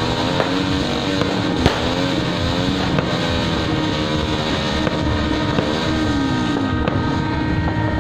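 New Year's Eve celebration din: a dense, steady roar with several tones slowly rising and falling, broken by scattered sharp firecracker pops, the loudest about a second and a half in.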